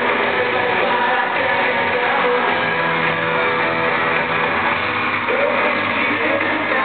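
A live pop-rock band playing, with a lead singer and electric guitars over a steady mix, recorded from the crowd in an arena.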